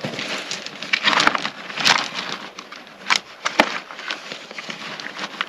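Gravel and river rocks being scraped and shifted by hand, a crunching, crackling rustle with a couple of sharp clicks about three seconds in.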